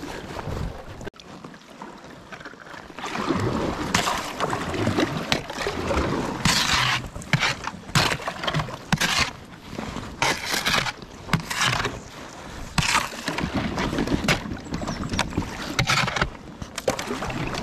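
Kayak pushing through thin sheet ice under paddle strokes: repeated crunching and scraping of ice against the hull, mixed with paddle splashes, every second or so from a few seconds in.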